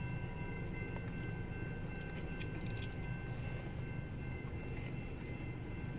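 Bilevel commuter coaches rolling through a level crossing: a steady low rumble with a few faint clicks, muffled inside a car's cabin.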